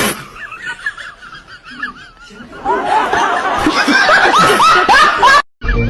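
Laughter in quick, rising-and-falling bursts, becoming louder and more crowded about two and a half seconds in, then cut off suddenly near the end.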